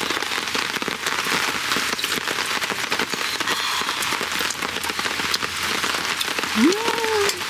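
Steady rain falling on the camp tarp overhead, a dense, even patter of small drops. Near the end a person gives a short hum whose pitch rises then falls.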